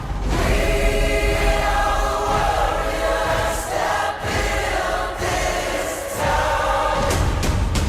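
Music: a choir holding long wordless notes that change chord every second or so, over a steady low bass.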